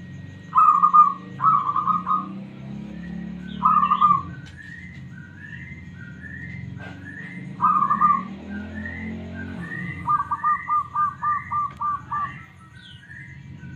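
Zebra dove (perkutut) cooing: several short loud coo phrases, then about ten seconds in a quick run of about eight staccato notes. Fainter, higher rising chirps repeat about twice a second behind it.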